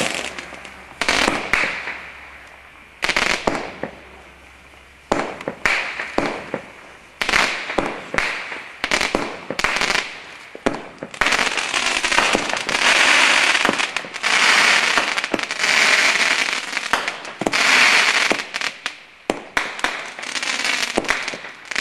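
Diamond Feuerwerk 'Tropical Fire' consumer fireworks cake firing shot after shot: sharp launch pops and bursts, irregularly spaced in the first half. From about twelve seconds in comes a run of longer, dense bursts, each lasting over a second.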